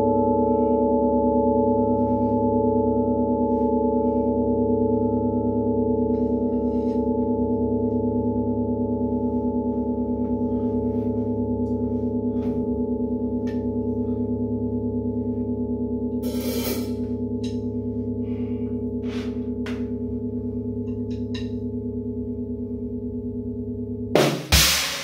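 A large gong ringing out in a long decay: a steady hum of many tones with a slow waver, fading gradually. A few faint clicks and a brief rustle come partway through, and a drum kit starts playing near the end.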